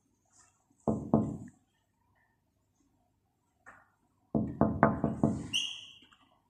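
Knocking on window glass: a pair of knocks about a second in, then a quick run of about six knocks a little past halfway, followed by a short high chirp.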